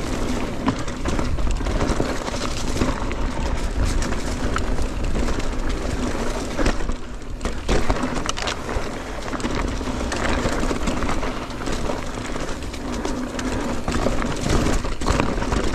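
Mountain bike riding down a dry, loose dirt trail: a steady rush of tyre noise with frequent small knocks and rattles from the bike.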